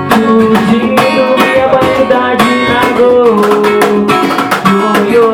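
Instrumental break of a Bahian carnival song: a lively guitar melody with bending notes over strummed accompaniment, with no singing.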